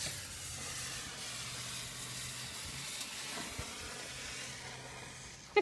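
Steady hiss of a burning firework, fading near the end.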